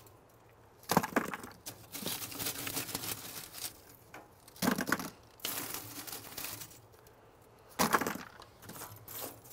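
Handfuls of leftover lump charcoal being scooped from a kamado's charcoal basket and dropped into a bucket: three loud clattering drops, about a second in, at about five seconds and at about eight seconds, with lighter rattling and scraping of charcoal pieces in between.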